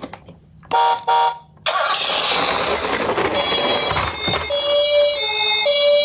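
Sound module of a Discovery Rescue battery-operated toy ambulance: a click, two short electronic beeps, a couple of seconds of rushing noise, then an electronic hi-lo siren alternating between two tones from about four and a half seconds in.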